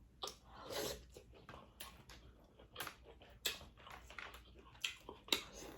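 Close-up eating sounds: a person chewing and handling seafood-boil food, with irregular short clicks and smacks.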